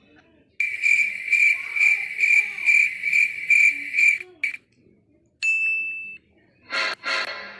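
Cricket chirping sound effect: a high chirp pulsing about three times a second for some three and a half seconds, stopping abruptly. A short beep follows, and a harsher sound starts near the end.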